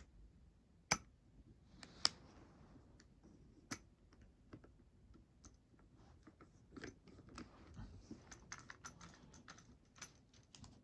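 Faint handling noise of lightsaber hilt parts being fitted together into a staff: a few sharp clicks in the first four seconds, then a run of small ticks and rustling near the end.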